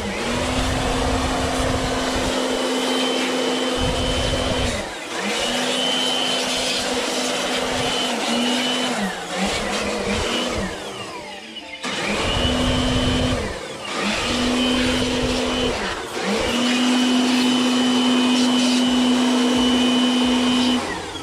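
Vacuum cleaner running, its hose nozzle worked around the dust inside a desktop computer case. The motor's steady whine over the rush of air dips in pitch and level several times as the airflow changes.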